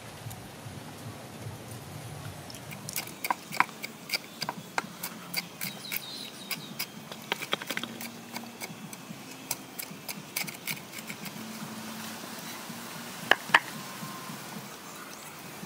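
Cleaver chopping fresh chillies and garlic on a wooden chopping block: quick, irregular knocks of the blade on the wood, then two sharper knocks close together near the end.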